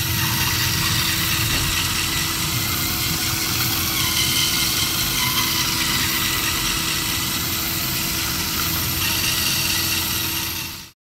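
LEGO Technic electric motor and gear train running steadily, turning a spoked wheel that churns against a foam-covered ramp. The sound cuts off suddenly near the end.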